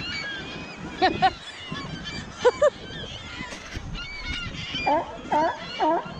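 Sea lions barking with honking calls, a couple of single barks early and then a regular run of about two barks a second near the end, while gulls keep up many thinner, high-pitched calls throughout, over the wash of the sea.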